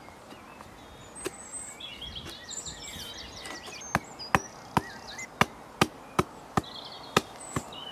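Fist knocking a solid-wood hive side board down onto its corner stick to seat the joint: a run of sharp wooden knocks, about two to three a second, starting about halfway through. Chirping calls come before the knocks.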